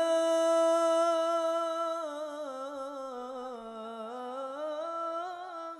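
A male solo singer holding one long, ornamented note of a sholawat chant through a microphone, without drums. The pitch holds steady, sinks and wavers lower around the middle, rises again near the end, then stops.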